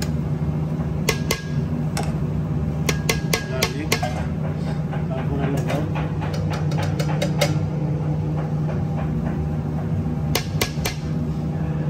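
Metal spoon clinking and scraping against stainless steel spice bins and a steel bowl: clusters of sharp clinks, some ringing briefly, over a steady low hum.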